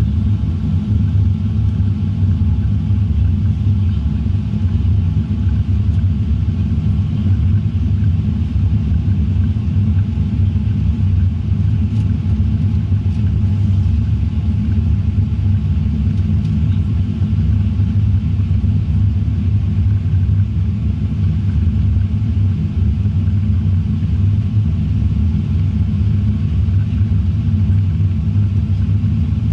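Steady low rumble inside the cabin of a Boeing 787-9 airliner: engine and airflow noise, even throughout.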